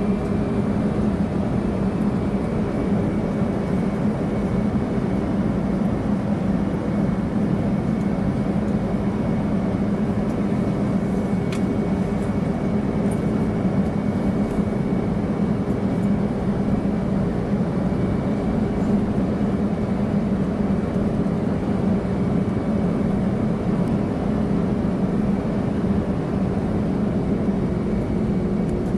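Cabin noise inside a jet airliner taxiing: the engines at low taxi power give a steady low hum with a faint high whine over it. Near the end the hum's pitch drops slightly.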